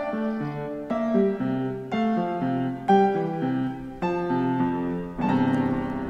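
Background music: a piano-like keyboard playing a melody of separate notes that change every half second or so.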